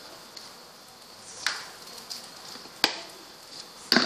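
Oil sizzling softly in a hot clay chatti as coriander powder is added. A few sharp clicks of a steel spoon come through the sizzle.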